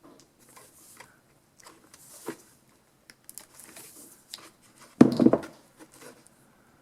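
Handling noises from a small space heater being taken apart: scattered scrapes, rustles and small clicks of the housing and cord, with one loud knock about five seconds in.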